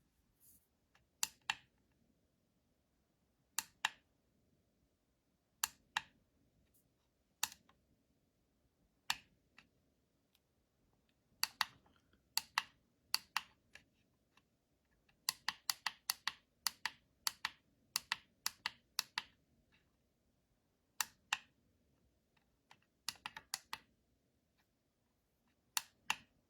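Small plastic buttons on a digital alarm clock clicking as they are pressed, often in press-and-release pairs a few seconds apart, with quicker runs of presses in the middle.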